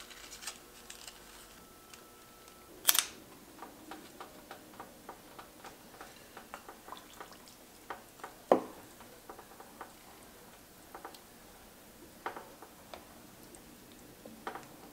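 Wooden spatula stirring a broth of onion and meat in an enamelled Dutch oven: many small wet clicks and splashes, with two louder knocks of the spatula against the pot, about three seconds in and again past the middle.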